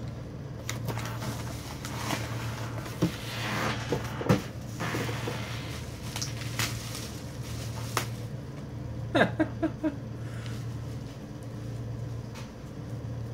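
Newspaper packing and plastic wrap rustling and crinkling as a parcel is unpacked by hand, with scattered sharp clicks and crackles and a quick cluster of them about nine seconds in, over a steady low hum.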